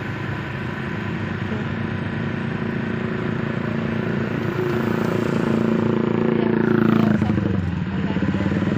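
A small engine running steadily, with a close, pulsing note. Its pitch shifts about seven seconds in and the sound eases off briefly.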